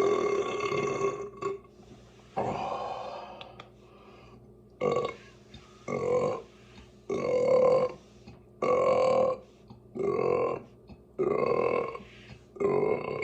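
A person burping repeatedly: one long drawn-out burp, then a run of about eight shorter burps, roughly one a second.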